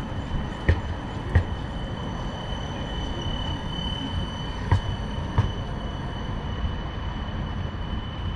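A rail vehicle running past: a steady low rumble under a high steady whine, with two pairs of sharp clacks, the first pair about a second in and the second about halfway through.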